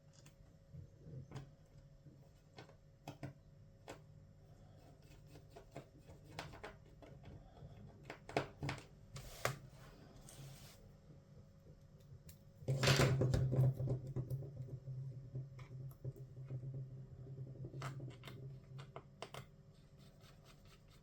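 Scattered small clicks and taps of hand work on a laptop and its parts, over a faint low hum. About two-thirds of the way through, a louder stretch of dense clicking and rattling begins and the hum grows stronger.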